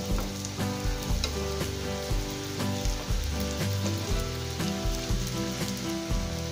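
Fuchka puris deep-frying in hot oil with a steady sizzle as they are turned in the pan. Background music with a steady beat plays underneath.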